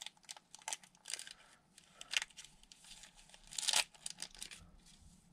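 Wrapper of a 1992 Impel X-Men trading card pack crinkling and tearing as it is pulled open by hand, in short scattered rustles, with louder crinkles about two seconds in and again near four seconds.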